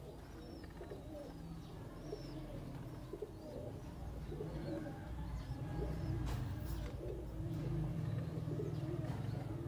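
Domestic pigeons cooing over and over, with a low rumble growing louder after about four seconds.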